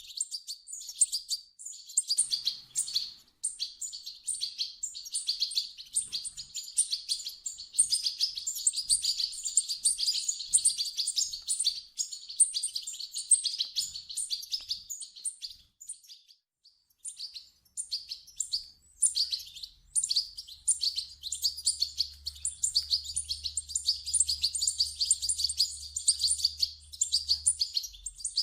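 Young European goldfinches chirping in rapid, continuous high twittering, with a brief pause about sixteen seconds in.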